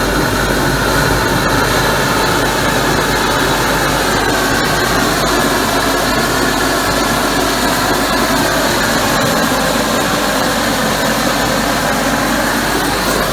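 Homemade steam gun running full blast: a propane torch roaring under it while it jets steam, a steady loud rushing hiss with faint shifting whistle tones.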